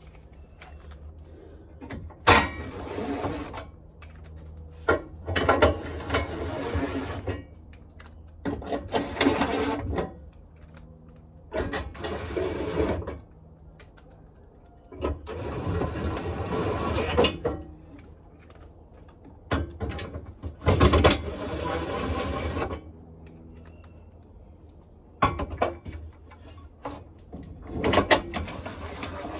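DeWalt cordless drill driving bolts into a bumper's mounting brackets, in about eight runs of one to three seconds each with short pauses between.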